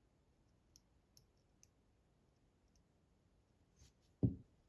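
Small metal parts of a disassembled lock cylinder clicking faintly as they are handled, a few light ticks, then one louder dull knock about four seconds in.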